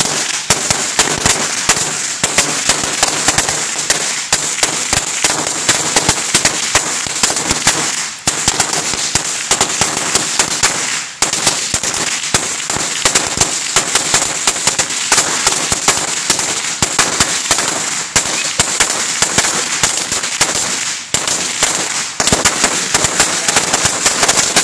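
A roll of 16,000 firecrackers going off: a continuous, rapid crackle of small bangs, dropping away briefly a few times before picking up again.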